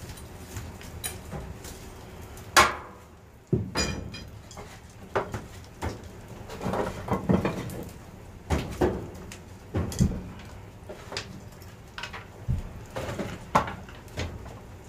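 Plastic maple sap taps and tubing fittings being handled and pressed together with a hand tool: irregular clicks, knocks and clatter, the sharpest click about two and a half seconds in.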